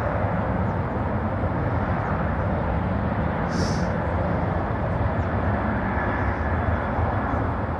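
Airbus A380-841's four Rolls-Royce Trent 970 turbofans running as the airliner rolls along the runway: loud, steady jet noise heavy in the low rumble. A brief high hiss about halfway through.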